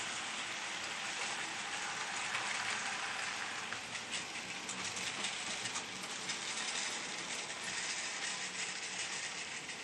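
OO gauge model train, a diesel locomotive hauling a long rake of container wagons, running past on the track: a steady rolling hiss with wheels clicking over the rail joints, the clicks thicker from about four seconds in.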